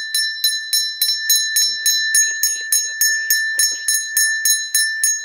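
A puja hand bell rung rapidly and steadily through the aarti, about four to five strokes a second, each stroke leaving a bright, high ringing tone. Faint voices murmur underneath.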